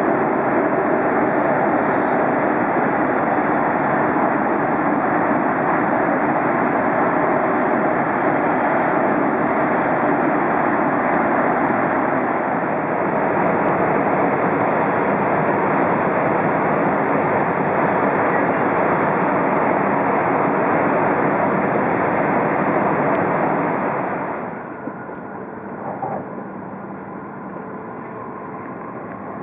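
E5 series Shinkansen running at speed, heard from inside the car: a steady, loud rushing rumble of wheels on rail and air noise. About 24 seconds in it drops sharply to a much quieter hum.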